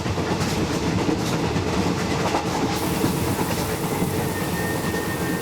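Running noise inside a moving passenger train: a steady rumble of the carriage and its wheels on the rails. A faint high steady whine joins about four seconds in.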